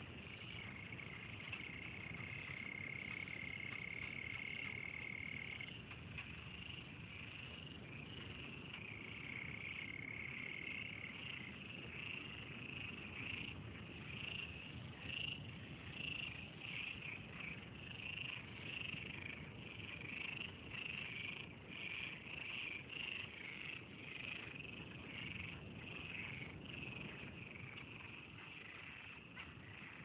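A dense chorus of frogs calling from a pond, continuous and overlapping. A long, even trill stands out twice in the first ten seconds.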